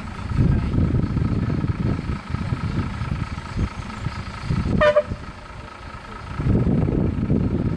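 Vehicle engine running with a low, uneven rumble, and one short horn toot about five seconds in.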